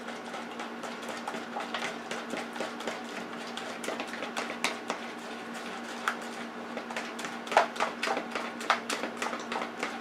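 A utensil stirring thin tempura batter in a plastic mixing bowl, tapping and scraping against the bowl in quick irregular clicks, more strongly in the second half, over a faint steady hum.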